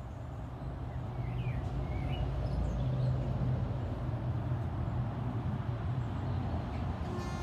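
A low engine rumble, such as passing traffic or an aircraft, swells over the first few seconds and then holds steady. A few faint bird chirps come about one to two seconds in.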